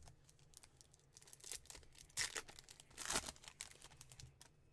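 Paper-and-foil wrapper of a Topps baseball card pack being torn open and crinkled by hand, in a few short rips with the loudest about two and three seconds in.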